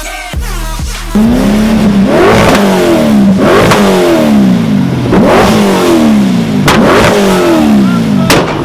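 Drift car's engine free-revved hard while standing, about five blips that each fall away, with two sharp exhaust bangs (backfires) near the end.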